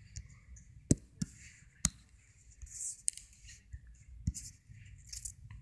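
Taps on a tablet touchscreen: about five sharp, separate clicks spread over a few seconds, with soft scratchy hiss between them.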